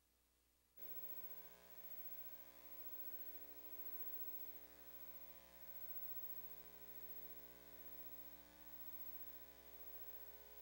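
Faint steady electrical hum and buzz, several unchanging tones together, which comes in about a second in and holds without change.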